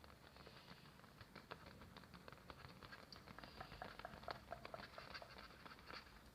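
Quiet, rapid patter of small clicks and light taps, several a second, some carrying a brief ringing note around the middle, made close to the microphone as ASMR triggers.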